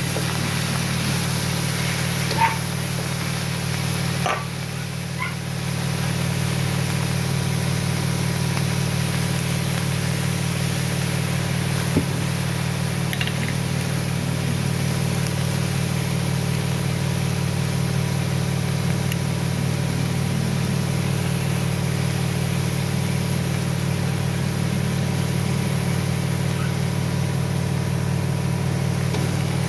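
A steady low mechanical hum runs under a light hiss of frying. A few sharp clicks of a spatula striking the pan come about two and four seconds in and again about twelve seconds in.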